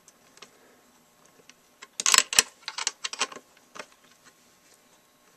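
A 3/8 combination wrench clicking and clinking on the nut as the tailstock of a Dremel Moto-Lathe is tightened down. There is a loud cluster of sharp metal clicks about two seconds in, then a few scattered clicks.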